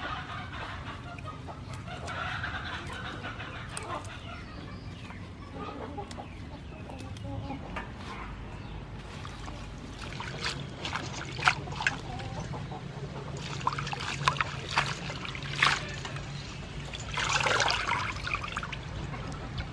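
Lettuce leaves rustling as they are pulled apart, then splashing and dripping as they are rinsed by hand in a metal bowl of water, with a louder splash near the end. Chickens cluck in the background.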